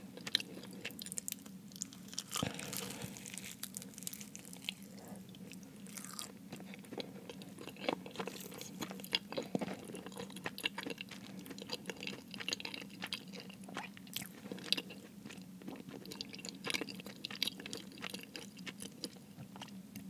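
Close-miked chewing of a Jamaican beef patty: wet mouth sounds broken by many small crisp crackles from the flaky pastry crust.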